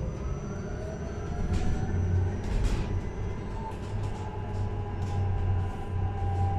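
Electric bus's traction motor whining, rising in pitch as the bus gains speed and then levelling off, heard from inside the cabin over a low road rumble and short interior rattles.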